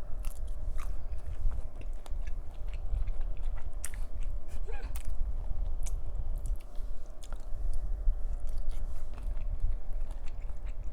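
Close-miked chewing and biting of shrimp cocktail, with scattered small clicks of the mouth.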